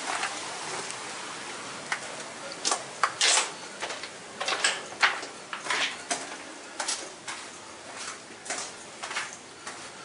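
Footsteps crunching on loose stones and gravel, in irregular steps about one to two a second, over a steady rushing background that fades away.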